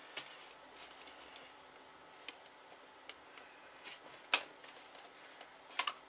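Scattered light clicks and taps of plastic and metal as a card reader is pushed and shifted in a computer case's drive bay to line up its screw holes, with one sharper knock about four seconds in and a quick double click near the end.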